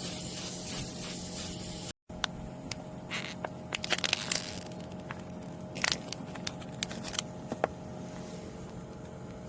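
Gas hissing steadily out of air-conditioner refrigerant piping for about two seconds, then cutting off abruptly. A series of sharp clicks, crackles and scrapes follows over a steady low hum.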